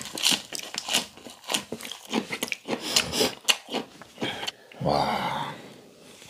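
Close-up mouth sounds of chewing a lettuce wrap of raw fish: repeated wet crunches and crackles of the leaf and flesh being bitten and mashed, then a short vocal sound about five seconds in.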